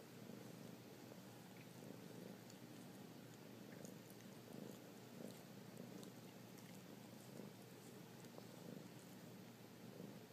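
Kitten purring faintly and steadily, swelling and fading at a slow, regular pace.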